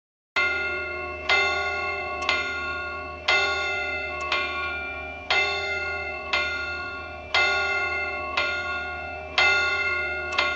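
Bell striking twelve o'clock: regular strikes about once a second, every other one louder, each note ringing on with many overtones. It starts after silence about a third of a second in and is cut off at the end.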